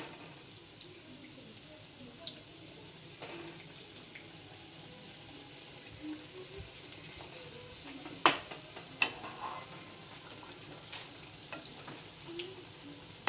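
Samosas frying in a little hot oil, a steady high sizzle. A few sharp clicks break through it, the loudest about eight seconds in and another a second later.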